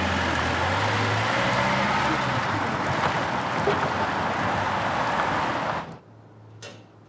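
City street traffic noise, a steady dense wash of vehicle sound, as an ambulance drives off. It cuts off suddenly about six seconds in, leaving quiet room tone.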